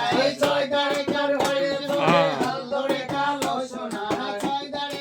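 Singing with a quick, steady beat of sharp percussive strokes, about three to four a second.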